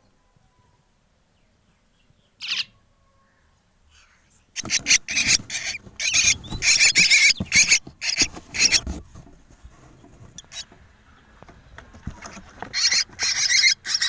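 Myna nestlings giving loud, rapid begging calls in repeated bursts, starting about four and a half seconds in and again near the end: hungry chicks asking to be fed.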